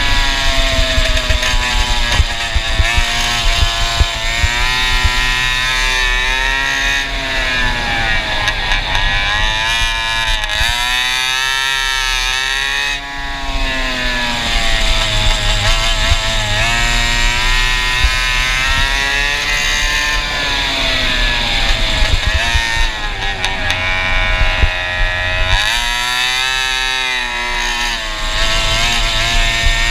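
Go-kart engine with a Stinger exhaust running hard around a track. Its pitch climbs on the straights and drops twice, about ten seconds in and again near the end, as the kart slows for corners, then climbs again.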